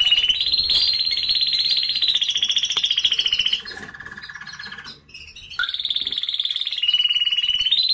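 A male domestic canary singing: long, rapid rolling trills at a high pitch, switching to a lower, quieter trill for about a second around the middle of the song, a short pause, then high trills again.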